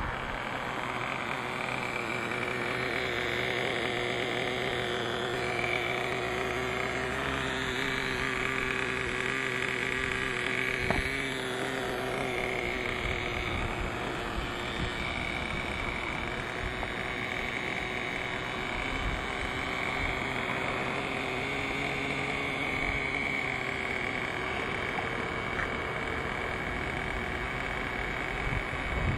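Traxxas T-Maxx RC monster truck's VX 18 two-stroke nitro engine running steadily, its pitch wavering a little with the throttle, with one sharp click about eleven seconds in.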